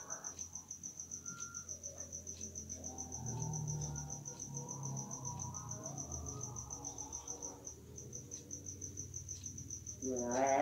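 A cricket chirping in a fast, even, high-pitched pulse, with faint distant chanting under it in the middle. A much louder call starts just before the end.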